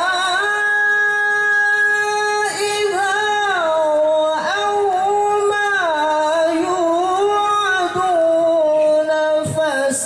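Male qari reciting the Quran in melodic tilawah style: one long held note at the start, then ornamented turns and slides between sustained pitches.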